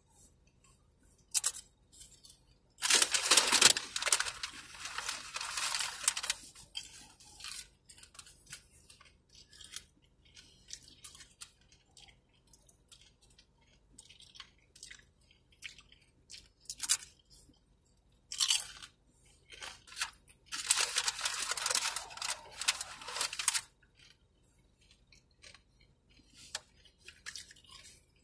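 Crunchy tortilla chips being chewed close to the microphone, in two long spells of loud crunching, about three seconds in and again about twenty seconds in, with scattered small crackles between.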